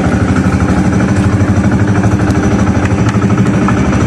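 Outrigger fishing boat's engine running steadily, heard close up from on board, with a fast, even pulse.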